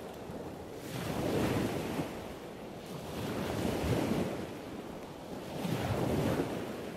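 A rushing, surf-like noise that swells and fades about every two and a half seconds, like waves washing in.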